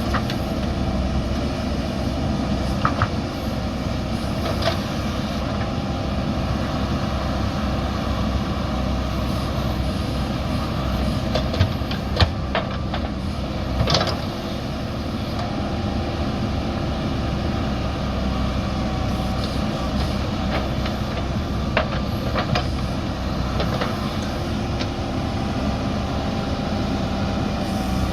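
JCB backhoe loader's diesel engine running steadily under work, with a few short sharp knocks.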